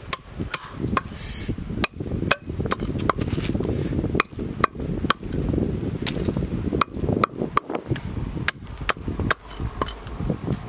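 Large kitchen knife scaling a fish on a wooden log: sharp knocks of the blade, about two a second and uneven, over a rough scraping rustle.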